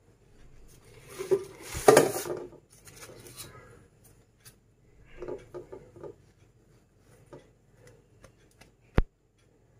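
Parottas and their paper lining being handled in an enamel pot: rustling and light knocks of the pot, loudest about two seconds in, then scattered soft ticks and one sharp click near the end.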